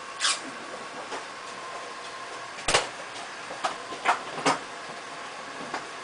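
Several short, sharp clicks and knocks from tools and fittings being handled during air-conditioner installation work, the loudest nearly three seconds in, over a steady faint hum.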